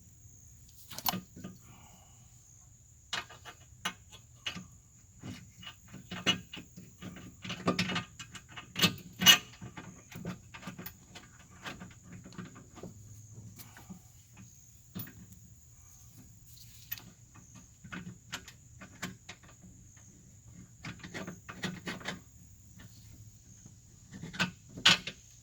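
Scattered metallic clicks, knocks and clanks of car suspension parts and bolts being handled and fitted by hand, with a louder knock about nine seconds in and another cluster near the end.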